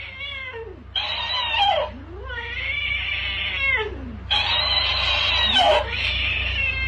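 Domestic cat meowing in long drawn-out yowls, each rising and falling in pitch, at a talking hamster plush toy that repeats each call back in turn through its small speaker. Cat and toy alternate about four times.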